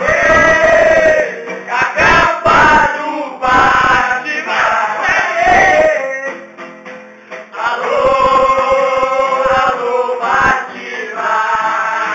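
Loud singing by several men's voices together, with breaks, easing off for a moment midway.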